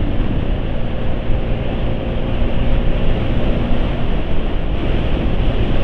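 A steady, loud rumbling noise with a faint hum running through it.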